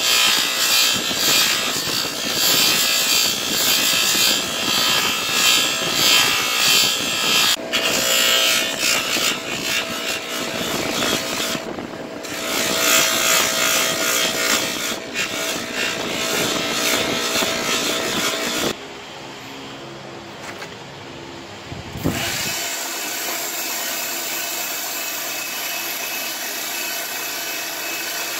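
Motor-driven sanding wheel grinding the handle end of a forged knife, a rough noise that rises and falls as the piece is pressed on and moved. About 19 s in it drops to a lighter, quieter sound; from about 22 s a steadier sanding of the wooden handle against a spinning wheel follows.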